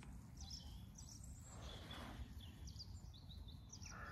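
Quiet field ambience: a faint low rumble of background noise with small birds chirping faintly and intermittently.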